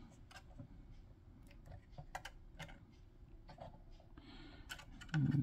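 Faint, irregular small clicks and taps as the wooden shaft of a paper umbrella is worked into the hole in a PVC figure's arm.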